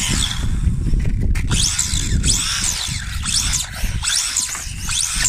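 Electric RC car motor whining high as it is throttled up and back off about five times in quick succession, over a low rumble.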